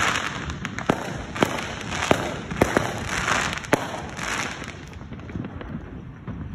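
Fireworks bursting in the sky: about six sharp bangs in the first four seconds, with a crackling hiss around them. The sound dies down after about five seconds.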